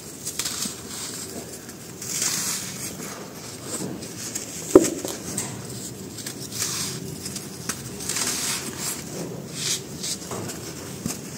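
Dry sand-cement chunks crumbled between the fingers: gritty rustling and trickling powder that swell in waves, with small crunches throughout and one sharp crack about halfway through.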